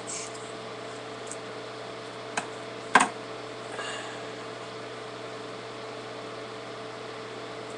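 Handling sounds while taping a hockey stick blade: a light tick a little over two seconds in and a sharp knock at about three seconds, with faint rustling of the tape, over a steady hum.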